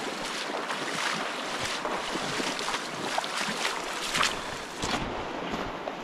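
Wading boots splashing through a shallow, running river in steady strides, about two splashes a second, over the rush of the current.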